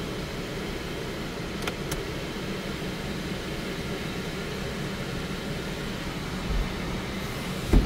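Steady rushing of a car's air-conditioning blower heard inside the cabin, with a low thump near the end.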